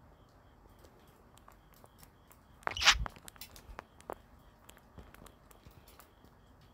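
A budgerigar's short flurry of wings and splashing at a glass water bowl, about three seconds in, followed by light scattered taps and clicks.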